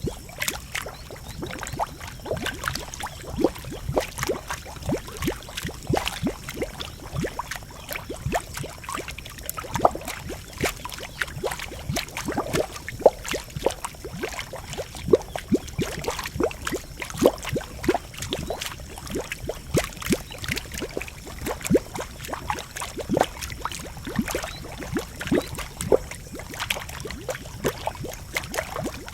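Geothermal pool bubbling, with a continuous irregular gurgling of many small bubbles popping at the surface.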